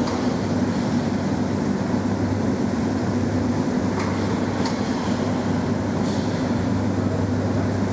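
Steady low hum of heavy construction machinery, with a few faint clicks about four to six seconds in.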